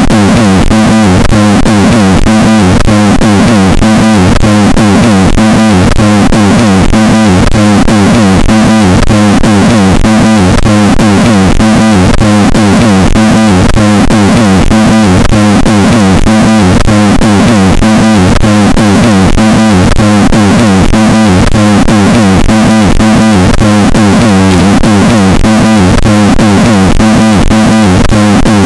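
Extremely loud, distorted synthesizer music at full volume with a fast, steady beat: an ear-splitting 'loud noise' gag.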